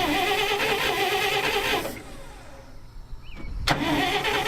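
Starter motor on a 1959 Dodge D-300's 318 V8 cranking the engine in two bursts of about two seconds each, with a short pause between. The engine turns over with an even, wavering starter whine and does not fire. The rebuilt starter is now engaging and spinning properly after its solenoid was moved back.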